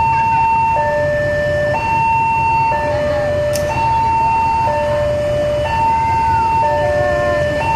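Two-tone electronic warning alarm alternating high and low, about a second per note, over the low rumble of a diesel freight train moving off.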